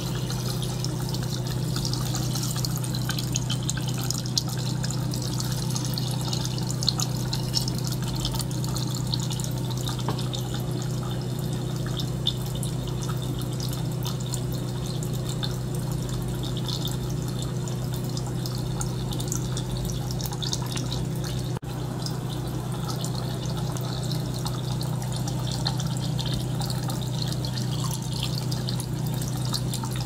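Small liquid-circulation pump running with a steady low hum, while water trickles, gurgles and drips through silicone tubing into a glass bottle sitting in a water tank.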